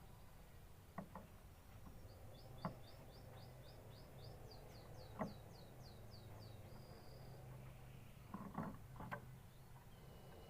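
Faint canary song: a fast trill of short repeated high notes, about three or four a second, ending in one brief held note. Several sharp knocks, louder than the song, fall before and during it, with a small cluster near the end.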